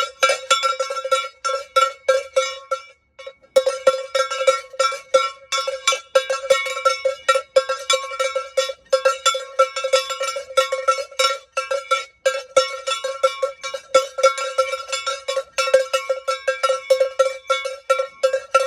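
A Swiss cow's neck bell clanking in quick, irregular strokes on one steady ringing pitch, with a short pause about three seconds in.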